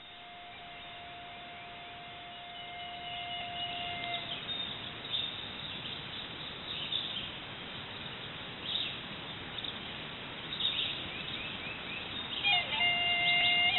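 Outdoor nature ambience: a steady hiss with scattered bird chirps. A held tone stops about four seconds in, and sustained instrumental notes begin near the end.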